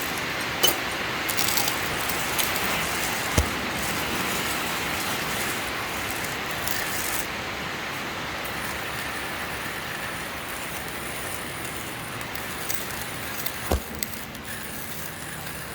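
Coffee grinder grinding fresh medium-roast coffee beans: a steady, even grinding noise with a few sharp clicks, easing off slightly toward the end.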